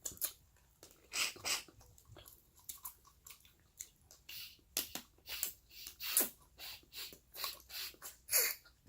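Lobster shell being cracked and pulled apart by hand, with biting, chewing and wet sucking close to the microphone: a fast, irregular run of cracks and smacks, a couple ending in short falling squeaks.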